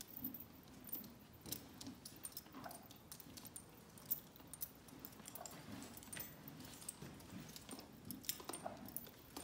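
Faint, scattered small clicks and clinks.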